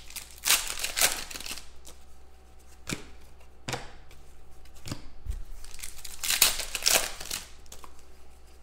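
Stack of glossy football trading cards being flipped and slid through by hand: crinkling and rustling, with longer rustles about half a second in and again around six to seven seconds in, and a few light clicks between.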